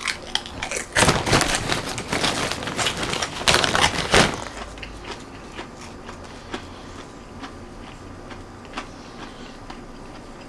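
Crunching and crackling of crispy pork rinds being eaten, dense for about four seconds, then dying down to a few faint clicks.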